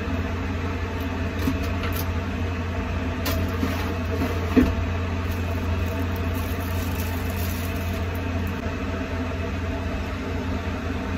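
Steady low drone of an airliner cabin, heard from the galley. A few light clicks and knocks from handling a cup and spoon, the sharpest about four and a half seconds in.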